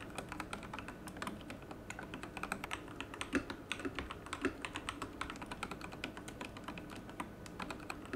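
Fast, continuous typing on a mechanical keyboard, a dense run of key clicks and clacks several a second.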